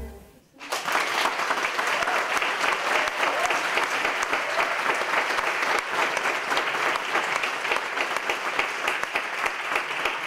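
Audience applauding, breaking out about half a second in after a brief silence and going on steadily.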